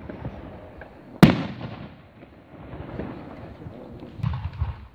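Aerial firework shell bursting with one sharp bang about a second in, its echo trailing off. A few duller, lower thumps follow near the end.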